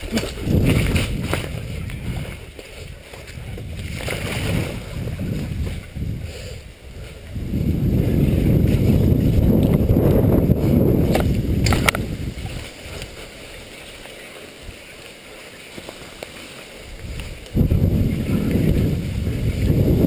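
Downhill mountain bike ride heard through the GoPro Hero HD's microphone: a low rumble of tyres and wind buffeting the microphone that swells and fades with speed, loudest while rolling over a wooden boardwalk, with a couple of sharp knocks from the bike rattling near the middle.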